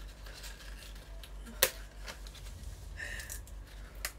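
Spring green leaves being torn off their stalks by hand: crisp rustling and tearing, with one sharp snap about one and a half seconds in.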